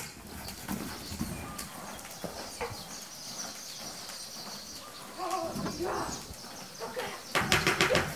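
A horse cantering on a lunge line in a sand arena, its hoofbeats thudding unevenly, with a quick run of sharp clicks near the end.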